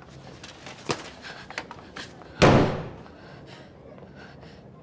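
A flat's front door slamming shut hard, about two and a half seconds in, with a brief ring-out; a couple of fainter clicks come before it.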